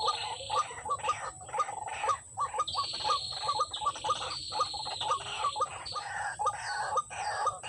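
White-breasted waterhen calling: a rapid run of short, harsh notes, about four a second, with a buzzing insect chorus over it in stretches of about half a second.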